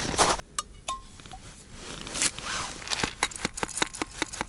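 A quick, even run of light taps, about six a second, starting about three seconds in, as groundbait is tapped out of a bag into a small bait feeder. A few scattered clicks come before it.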